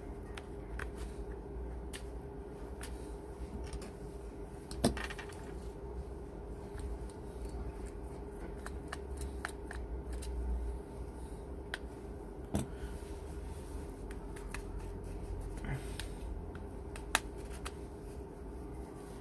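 Scattered small clicks and taps of repair tools against a phone's plastic and metal parts as it is being taken apart, with a few sharper knocks, over a faint steady hum.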